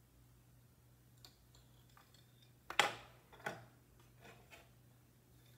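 A few sharp wooden clicks and knocks as a boat shuttle is handled and passed through the warp of a Louet Erica table loom, the loudest about three seconds in and a second one just after.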